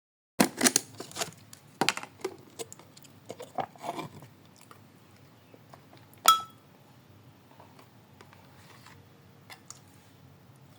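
Clicks and knocks of objects being handled, with one sharp, ringing clink about six seconds in.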